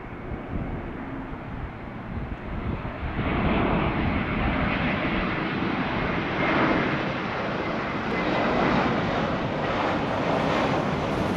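Jet noise of an Airbus A321 airliner on final approach with its landing gear down: a broad rush from its two turbofan engines with a faint steady whine in it, growing clearly louder about three seconds in as the aircraft comes closer.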